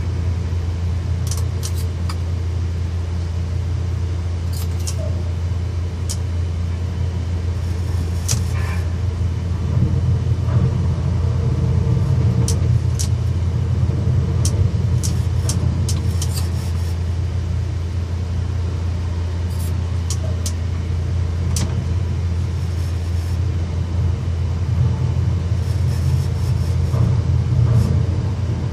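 Tower crane machinery running: a steady low hum that grows louder for stretches as the trolley travels along the jib, with scattered sharp clicks.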